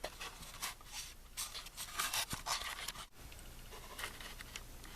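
Faint handling noises of hands working under a car: rustling and a few light knocks and clicks.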